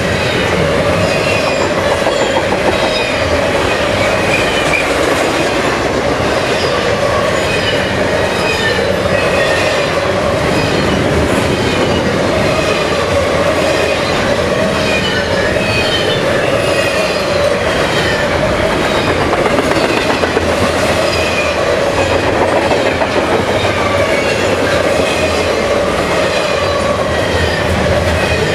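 Loaded double-stack intermodal well cars rolling past close by: a steady, loud rumble and clatter of steel wheels on rail, with a ringing tone and repeated high squeals from the wheels.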